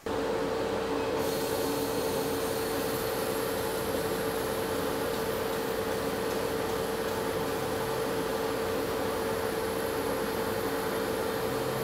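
Laser cutter running as it cuts a plastic sheet: a steady machine hiss and hum with one constant tone.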